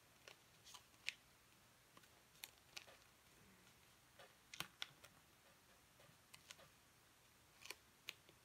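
Sheet of origami paper being folded and creased by hand: faint, scattered short crinkles and clicks of paper against paper and tabletop.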